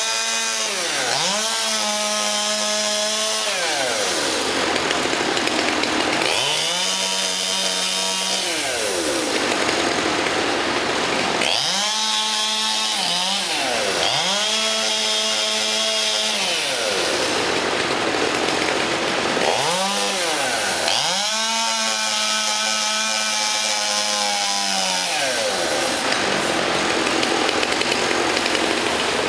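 Chainsaw running, its engine revving up and dropping back several times, each spell at high revs lasting a second or three.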